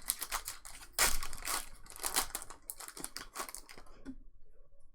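Trading-card pack wrappers and cards being handled: a quick run of crinkling, tearing rustles that dies down about four seconds in.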